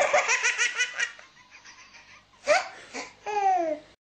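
Someone laughing: rapid ha-ha pulses, about six a second, for the first second, then fainter chuckles, a short burst of laughter, and a drawn-out falling laugh near the end.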